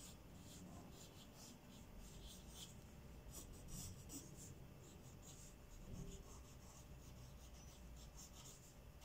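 Faint scratching of a pencil drawing on paper: a run of short strokes, some in quick clusters.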